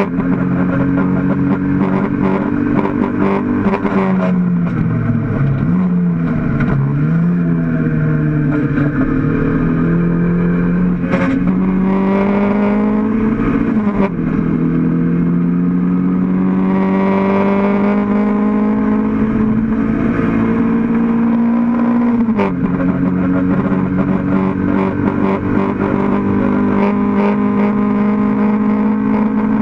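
Mk1 Toyota MR2 race car's engine heard from inside the cabin, pulling hard. The engine note dips and wavers early on, then climbs slowly and steadily. The pitch drops suddenly three times, about 11, 14 and 22 seconds in, as the gears change.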